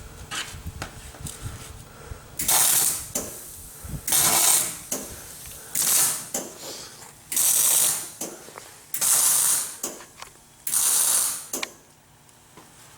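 Arc welding in six short bursts of crackling hiss, each under a second and about one and a half to two seconds apart: a series of short welds being laid on steel.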